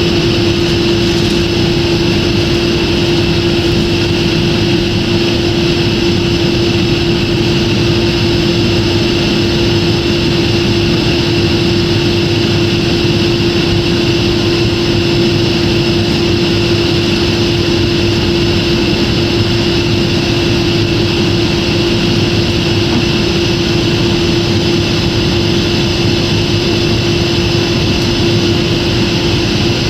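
Steady jet airliner cabin noise in flight: the engines and rushing airflow make an even drone with a constant hum through it.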